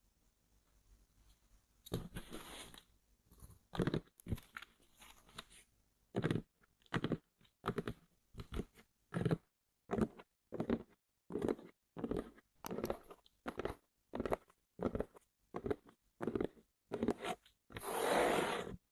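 Headphone box and packaging being handled: a run of short crackly noises, about one or two a second, then a longer continuous noise near the end.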